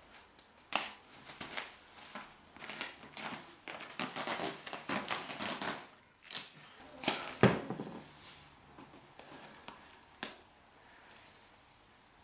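Plastic bag crinkling and rustling in irregular bursts, as a bag pulled over a person's head is crushed and struggled against, the loudest crackle about two-thirds of the way in; it goes quieter after that, with one more crackle near the end.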